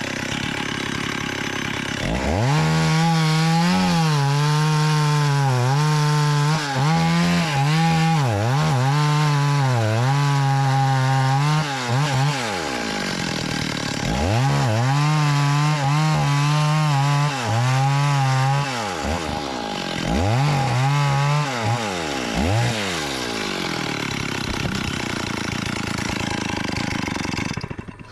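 Two-stroke chainsaw running at high revs and cutting wood, its pitch dipping and recovering again and again under load, with short breaks in the cutting. Near the end the engine note gives way to a rougher sound before everything cuts off abruptly.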